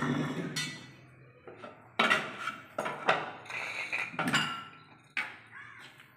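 Dishes and a kitchen utensil clinking and knocking against a bowl and ceramic plate while boiled potatoes are broken up and moved onto the plate. About nine irregular knocks, some with a short ring after them.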